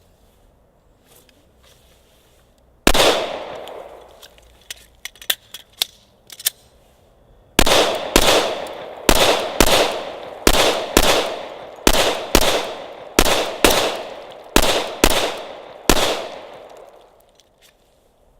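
Glock 21 Gen 4 .45 ACP pistol firing: a single shot about three seconds in, a few faint sharp cracks, then a string of about a dozen shots in quick pairs, each pair about half a second apart, ending near sixteen seconds. Each shot is followed by a ringing echo.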